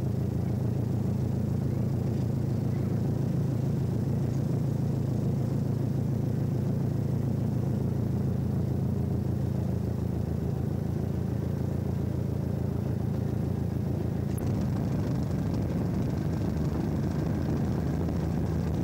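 Hastings diesel-electric multiple unit running at speed, heard from an open carriage window: a steady low drone from its English Electric diesel engine mixed with rushing air.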